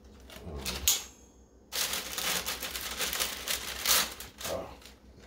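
Parchment paper crinkling and rustling as it is handled and folded by hand, with a short pause about a second in before a longer stretch of crinkling.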